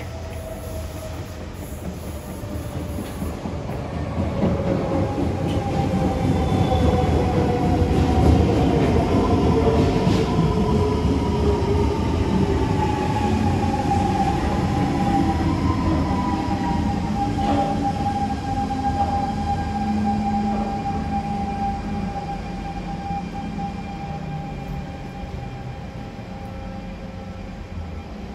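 Siemens GTO-VVVF traction equipment of a 1994 C651 metro train whining in several tones that fall slowly in pitch as the train slows into the station, over the rumble of wheels on rail. The sound is loudest as the cars pass about eight seconds in, then eases as the train draws to a stop.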